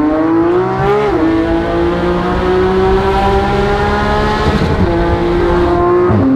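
Porsche 991.1 GT3 RS's naturally aspirated 4.0-litre flat-six, with a Sharkwerks exhaust on stock headers and cats, pulling under throttle, heard from inside the cabin. The engine note climbs steadily and dips in pitch at upshifts about a second in, near five seconds and again at the end.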